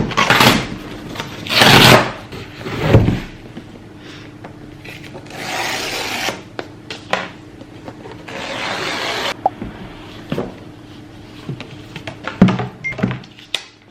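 A new MacBook's cardboard box and packaging being handled and opened: rubbing, sliding and rustling in several loud bursts, with scattered taps and knocks.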